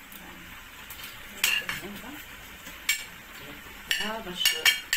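A metal spoon stirring in a cooking pot: a handful of sharp clinks of metal on metal, several close together near the end, over a faint steady hiss.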